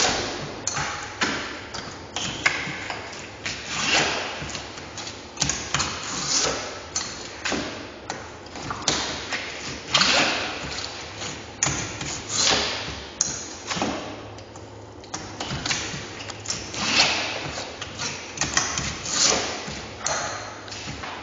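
Knife knocks and scraping strokes on a wooden cutting board as eels are split open along the belly and filleted, coming irregularly about once or twice a second with a few louder knocks.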